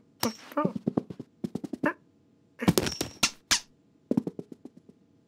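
Cartoon cat sound effects: short voiced grunts and mews mixed with rustling and clicking as the cat rummages in a suitcase. A dense burst of rustling comes around the middle.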